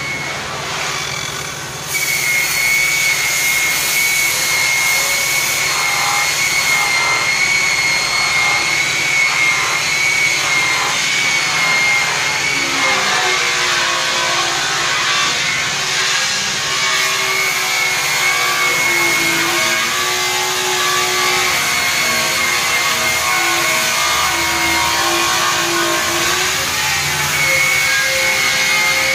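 Handheld electric rotary polisher with a buffing wheel, switching up to speed about two seconds in and then running against an aluminum truck grill. It gives a steady high motor whine over a rough rubbing hiss.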